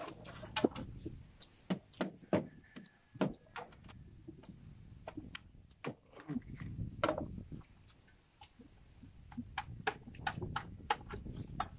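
Irregular sharp clicks and taps of a knife and fingers cracking and picking open spiny sea urchin shells.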